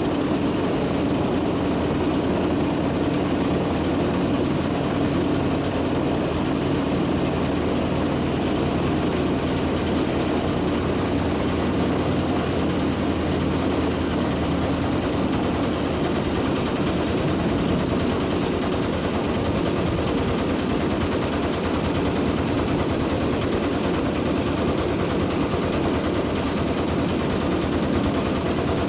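An engine running steadily at an even level, with a low hum and a rapid, even knocking rattle.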